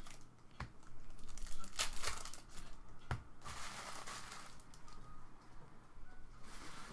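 Plastic trading-card packaging crinkling and tearing as card packs are opened by hand, in several spells of rustling broken by a few sharp clicks.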